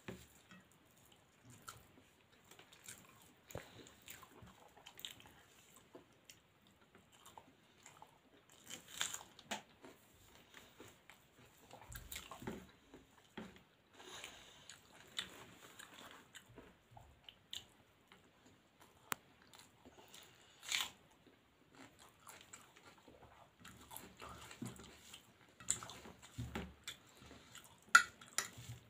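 Close-up eating sounds of a person eating rice and vegetable fry by hand: chewing and mouth smacks, with fingers mixing food on a steel plate. Irregular small clicks throughout, a sharper one near the end.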